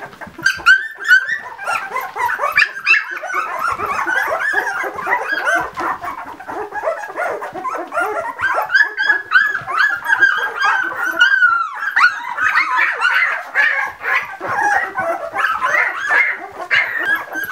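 A litter of ten-day-old Labradoodle puppies squeaking and whimpering, with many short, high-pitched calls overlapping without pause.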